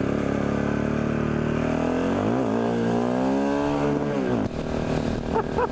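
KTM motorcycle engine pulling along the road. Its revs dip for a gear change about two seconds in, climb again, and then drop away as the throttle closes near the end.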